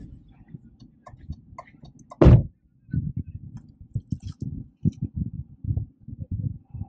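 Irregular low thumps and rumbles on the phone's microphone, with one louder thump a little after two seconds in and a few faint clicks.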